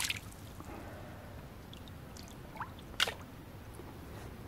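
Chalk-stream water trickling and lapping, with a short sharp sound about three seconds in.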